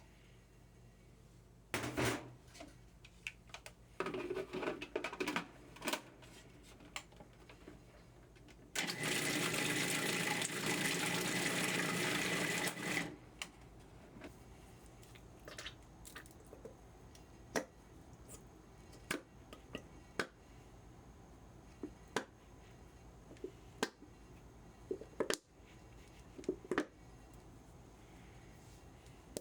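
An electric blender runs steadily for about four seconds in the middle and then cuts off, with a steady whine in it. Scattered clicks, taps and knocks of kitchen utensils come before and after.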